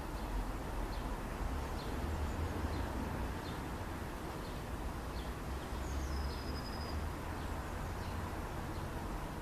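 Small birds chirping in short, scattered high calls, with one longer level whistled note about six seconds in, over a steady low rumble.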